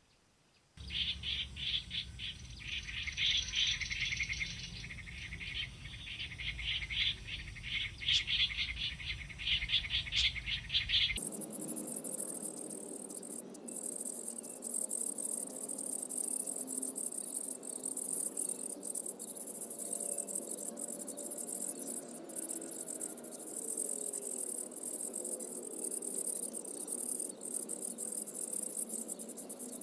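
Rapid, repeated bird chirping over a low rumble. Then, after an abrupt change about eleven seconds in, a steady shrill insect chorus with faint bird calls beneath it.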